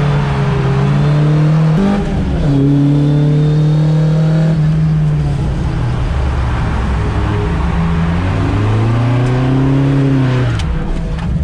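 Carbureted Toyota 4A-GE four-cylinder engine of an AE86 Corolla, heard from inside the cabin, running at high revs while drifting. The revs step up about two seconds in, sag and climb again later, then fall away sharply near the end.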